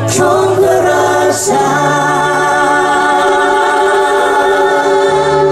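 Live big band music with voices holding a long, wavering note over the band, the bass note shifting about a second and a half in.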